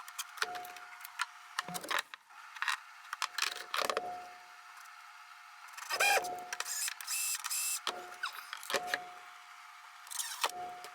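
Irregular knocks, clicks and rattles of hand work on cabinet drawer-slide hardware and wood, the loudest knock about six seconds in.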